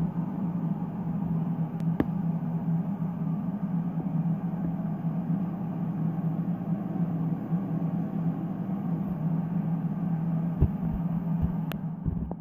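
Steady low hum of a running machine, with two faint clicks: one about two seconds in and one near the end.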